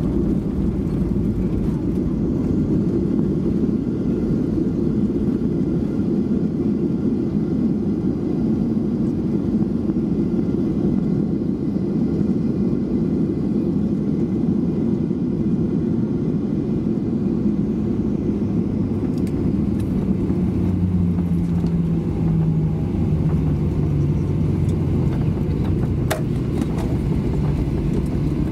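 Cabin noise inside a Boeing 737-800 rolling out on the runway after touchdown: a loud, steady rumble of its CFM56 engines and the wheels as the jet slows. In the last several seconds a low hum slowly falls in pitch, and there is a sharp click near the end.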